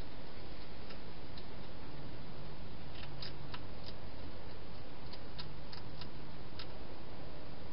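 Wild hedgehog crunching dry food in a plastic feeding station: irregular crisp little clicks over a steady hiss.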